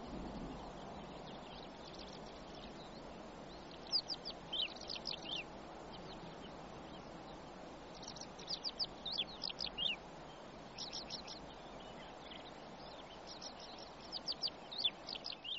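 Small birds chirping in several short bouts of quick, high notes, over a steady background hiss.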